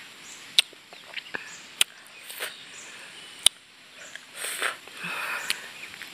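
Mouth sounds of someone eating passion fruit pulp straight from the shell: sucking and slurping, with a few sharp clicks of the lips and a longer noisy slurp about four to five seconds in.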